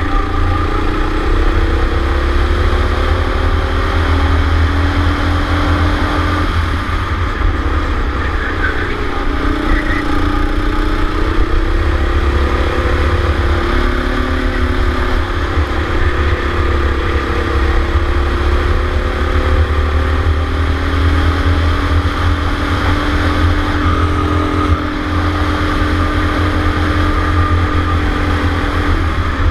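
Go-kart engine heard from on board at racing speed: its pitch climbs steadily through the straights and drops as the kart lifts off for corners, several times over, over a heavy low rumble.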